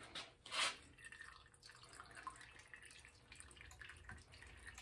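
Faint workshop handling sounds: a sharp click about half a second in, then scattered small clicks and taps.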